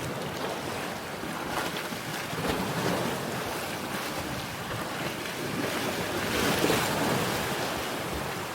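Sea waves washing onto a rocky shore, a steady rush of surf that swells twice, with wind buffeting the microphone.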